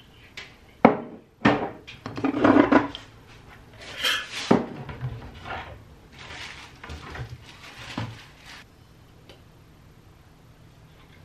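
Crockery and glassware being handled at wooden kitchen cupboards: a ceramic mug set on a cupboard shelf, a cupboard door, and a glass jar, heard as a string of sharp knocks and clatters, the loudest in the first two seconds. The handling grows lighter and stops after about eight and a half seconds.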